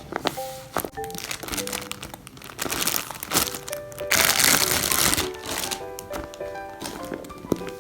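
Background music with plastic packaging crinkling and rustling over it, twice, the second time louder and longer, about four to five seconds in, with small clicks between.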